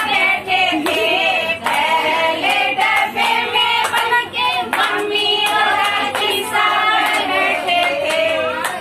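A group of women singing a Marwari folk wedding song (vivah geet) together, with occasional hand claps.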